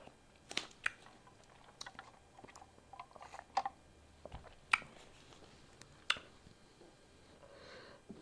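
Close-miked chewing and slurping of beef pho noodles: irregular wet mouth smacks and clicks, a few of them sharper and louder.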